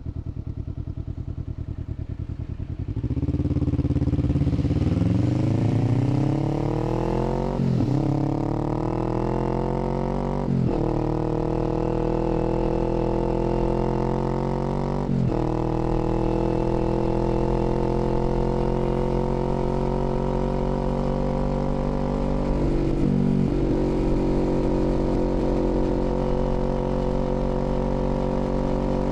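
Kawasaki Z400's 399 cc parallel-twin engine idling, then pulling away under throttle. Its pitch climbs and drops back at three upshifts, then it holds a steady cruise.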